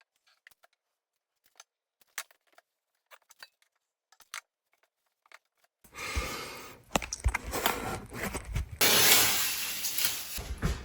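Scattered faint clicks, then from about six seconds in a stretch of clattering and rustling handling noise with sharp knocks, loudest near the end.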